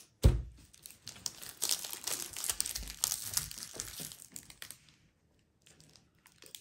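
Foil wrapper of a Pokémon trading-card booster pack crinkling as it is handled, after a low thump just after the start. The crinkling stops about five seconds in.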